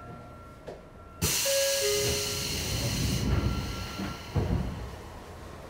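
Sotetsu 8000 series train's doors closing at a station stop: a sudden loud hiss of air about a second in, dying down after a couple of seconds, with a brief falling two-note tone just after it starts and a thump a few seconds in.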